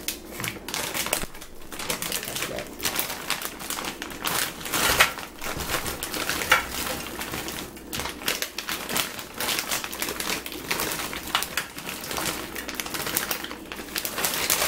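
Frozen crinkle-cut fries clattering into a nonstick air fryer basket as they are poured and shaken out of their bag, a dense, irregular run of small hard clicks and knocks with some bag crinkling.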